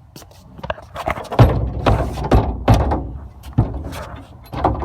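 A door rattling and banging as it is pulled and forced open: a run of loud knocks and thuds between about one and four seconds in.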